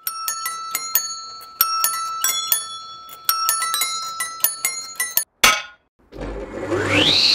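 Rapid bell-like metallic strikes at several pitches, ringing over one another, then one sharp crash. About six seconds in, a table saw motor starts up, its whine rising quickly in pitch and then running steady over a low hum.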